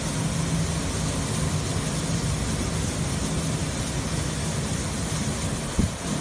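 Ship loader spout pouring granular fertilizer into a cargo hold: a steady machinery hum under a continuous rushing noise of the falling stream. One brief knock sounds shortly before the end.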